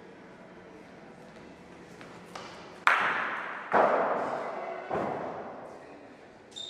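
Bochas balls striking one another: a light tap, then three sharp clacks about a second apart, each ringing out as it fades. A short high beep sounds near the end.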